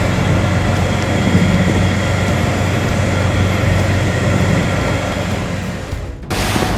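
A steady engine drone runs with a low hum, then cuts off abruptly about six seconds in. A rush of wind and water noise follows.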